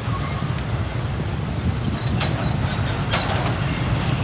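Heavy vehicle engine rumbling steadily at a railway level crossing, with two short sharp sounds about a second apart, the first a little past halfway.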